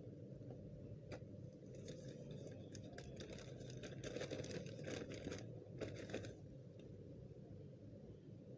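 Plastic courier mailer bag rustling and crinkling as it is handled and turned over, busiest from about two seconds in to just after six seconds.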